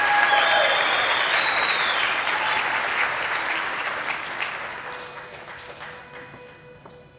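Audience applause, loud at first and gradually dying away over several seconds, with a faint steady tone coming in near the end as it fades.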